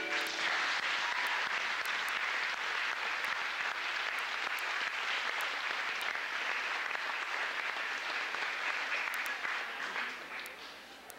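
Audience applauding steadily, the clapping thinning out and dying away near the end. The last notes of recorded music fade out just as it begins.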